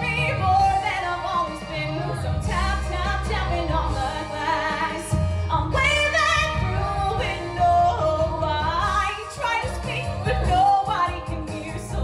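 A woman singing a musical-theatre song live into a microphone over an instrumental backing, with held notes that carry a wavering vibrato.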